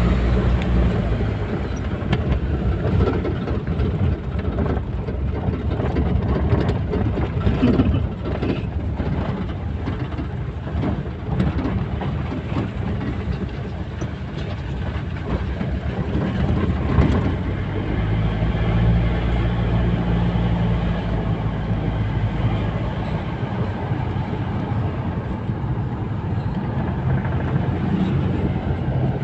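Steady engine and road rumble of a moving vehicle, with an engine hum standing out for a few seconds about two-thirds of the way through.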